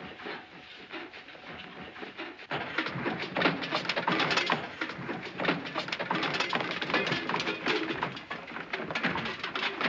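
Many soldiers' boots clattering quickly and unevenly as a squad hurries out, starting about two and a half seconds in.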